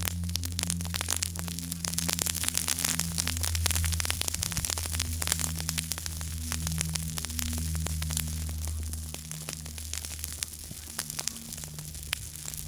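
Small campfire burning, wood crackling and popping in quick, irregular snaps over a steady hiss, with a low hum underneath.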